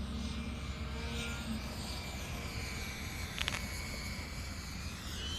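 HSD Tornado 75 mm electric ducted fan jet in flight: a thin, steady high-pitched fan whine that rises in pitch near the end, over a low rumble of wind on the microphone.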